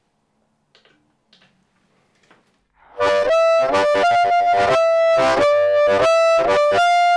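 Harmonica played through a Blowsmeaway Ultimate 545 microphone and a Lone Wolf Harp Attack pedal, with reverb switched on. It comes in loud about three seconds in, after a few faint clicks, playing a run of short repeated notes.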